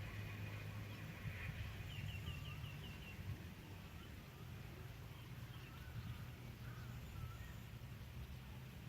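Faint outdoor ambience with small birds chirping, including a quick run of about six high chirps about two seconds in and a few softer calls later, over a steady low rumble.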